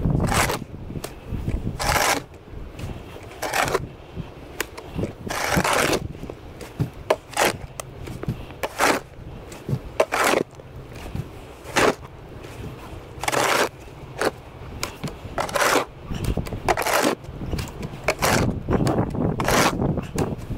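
Snow shovel scraping across pavement in repeated strokes, one about every second and a half, as snow is pushed and cleared.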